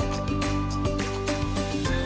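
Background music with sustained chords over a steady beat, about two beats a second.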